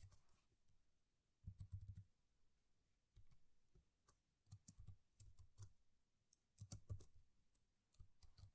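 Faint computer keyboard typing: short clusters of key clicks with pauses in between.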